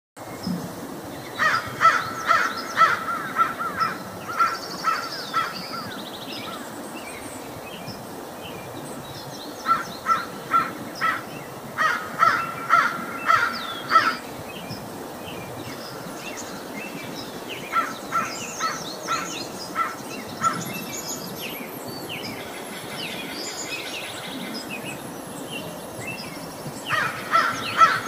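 Crows cawing in several bouts of quick, repeated caws with pauses of a few seconds between, over faint chirping of smaller birds.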